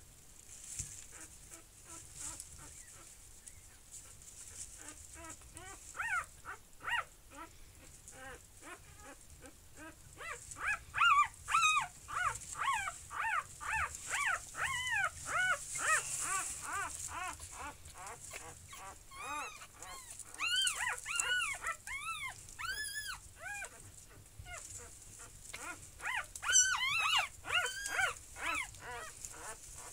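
Newborn puppies crying: many short high-pitched squeaks, each rising and falling in pitch. They start several seconds in and come in quick runs.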